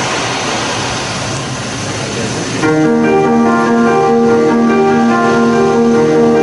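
Steady noise from the audience in the hall, then about two and a half seconds in the dance's backing track starts suddenly: sustained electronic keyboard chords with long held notes.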